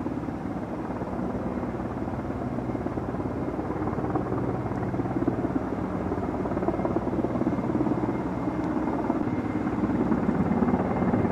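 Helicopter in flight: the fast steady beat of the main rotor over a low engine hum, growing slightly louder toward the end.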